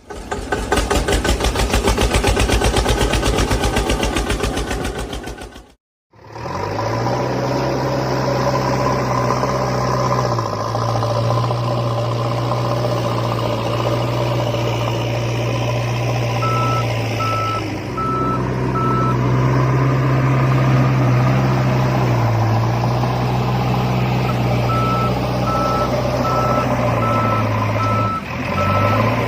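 Backhoe loader sound: a fast, evenly pulsing rattle that stops suddenly, then a steady low engine drone that shifts pitch several times. A repeating reversing beep sounds twice over it, the second time near the end.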